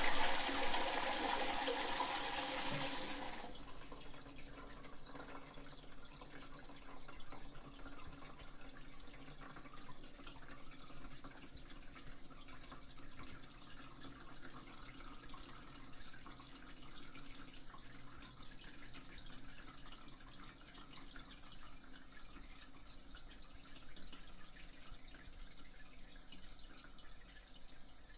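The tail of a toilet flush, loud rushing water that drops away about three and a half seconds in, then the toilet's water running quietly with small irregular trickles and drips as it settles and refills.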